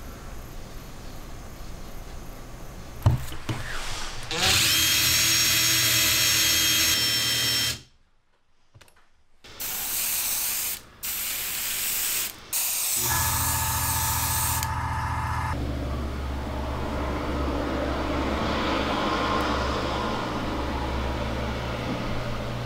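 Short workshop sounds separated by cuts: a power tool running with a steady whine for about three seconds, then later a small electric motor humming steadily as it slowly turns a driftwood lure for its epoxy coat.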